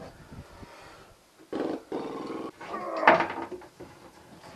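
A man's low, strained groans of effort as he stretches down into a boat's bilge: two drawn-out groans about a second each, starting about a second and a half in.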